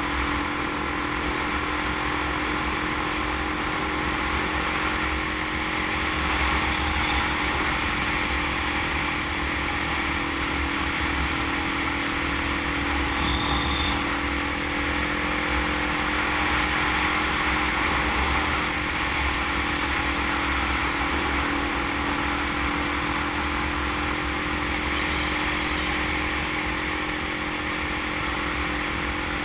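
Motorcycle engine running steadily at cruising speed, with a continuous rush of wind and road noise. A short high tone sounds briefly about halfway through.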